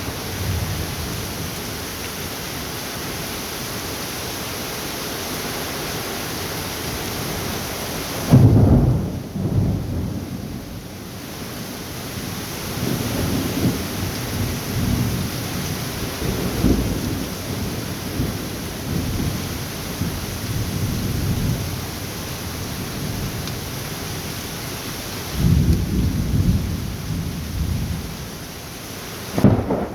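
Thunderstorm: steady rain with thunder. A loud crack of thunder about eight seconds in rolls into low rumbling that comes and goes for several seconds. Another rumble follows near the end.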